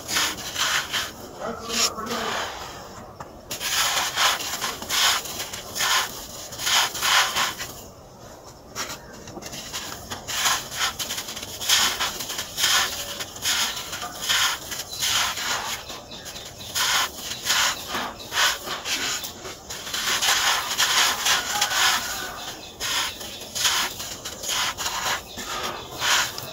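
Dry sand scooped, squeezed and crumbled by hand, the grains crunching and trickling through the fingers in repeated gritty bursts, with brief pauses between handfuls.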